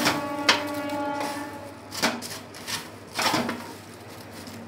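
Crisp fried shredded potato (jhuri aloo bhaja) and the tissue paper under it rustling and crackling in short bursts as a hand tosses and mixes it, with a longer crackle a little past three seconds in.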